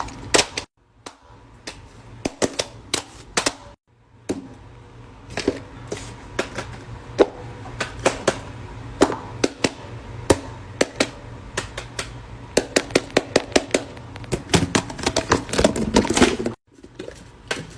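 Fidget toys being clicked and snapped by hand, an irregular run of sharp clicks, faster and denser near the end, broken by short gaps where one clip cuts to the next.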